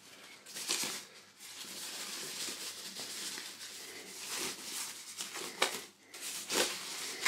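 White packing tissue crinkling and rustling as it is lifted and handled out of a cardboard box, with several louder rustles along the way.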